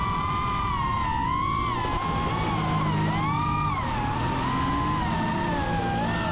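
FPV quadcopter motors and propellers whining, several close pitches rising and falling together with the throttle, over background music.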